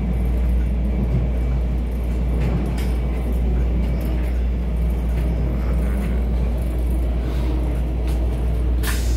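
Steady low rumble of a moving passenger train, heard from inside the carriage, with a brief sharp click near the end.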